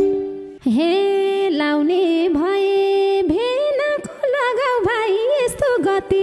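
A woman sings a Nepali dohori phrase solo and unaccompanied, in long held notes with wavering ornaments and slides. The madal-and-keyboard accompaniment stops right at the start, and the voice comes in about half a second later.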